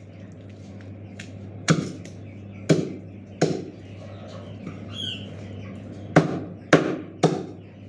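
Meat cleaver chopping raw chicken on a plastic cutting board: six sharp chops, three spaced about a second apart and then three in quicker succession near the end, over a steady low hum.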